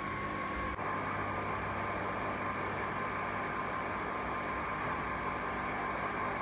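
Washing machine running with a steady mechanical hum and a few constant tones, its sound shifting slightly about a second in.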